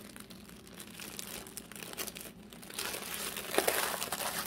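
Clear plastic packaging bag crinkling as it is handled and pulled open by hand. The crinkling is soft at first and gets louder and denser a little under three seconds in.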